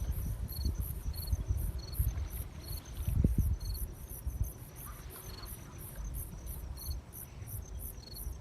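Crickets and other insects chirping at dusk in a steady pulsing chorus: a very high rapid pulse about three times a second, with a lower chirp about once a second. A low rumble runs beneath, with a thump about three seconds in.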